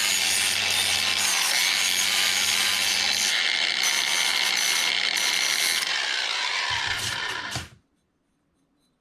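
Cordless angle grinder with a worn flap disc grinding the sharp machined edges and corners of a stainless steel foot peg to dull them. A steady motor whine and grinding noise that cuts off suddenly near the end.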